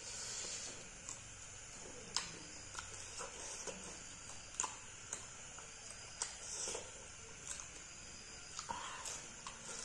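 Close-up eating sounds of a person chewing rice and fried fish: wet mouth smacks and irregular sharp clicks every half second or so.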